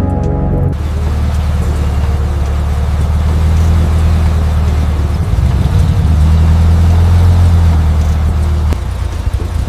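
Porsche 911 Turbo (930) flat-six engine running as the car drives, a deep steady rumble that swells louder about five seconds in and eases near the end. Background music cuts off just under a second in.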